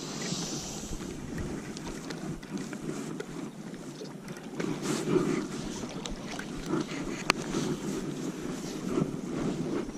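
Wind buffeting the microphone, an uneven rumbling rush, with scattered light ticks and one sharp click about seven seconds in.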